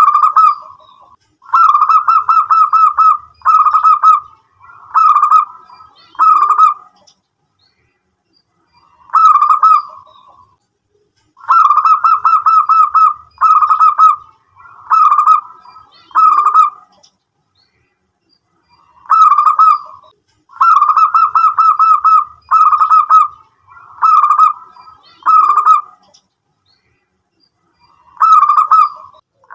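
Zebra dove (perkutut) singing its rapid, pulsed cooing song in repeated bouts. Each bout is an opening coo, then a long rapid trill and three or four shorter clipped phrases. Three full bouts come about ten seconds apart, and a fourth begins near the end.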